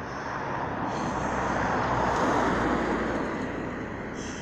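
A road vehicle passing by: tyre and engine noise builds to a peak about halfway through, then fades away.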